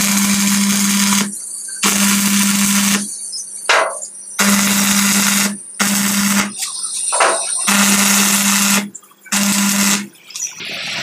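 Stick (MMA) arc welding with an IGBT inverter welding machine: about six short welds, each a crackling sizzle of the arc over a steady low hum, lasting a second or so and breaking off between welds as the rod is lifted.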